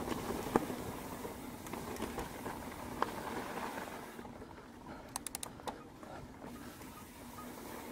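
Mountain bike rolling fast downhill on a dirt forest trail: steady tyre noise over dirt and leaves, with sharp knocks and rattles of the bike over bumps. About five seconds in, the hiss eases and a quick run of about six sharp clicks sounds.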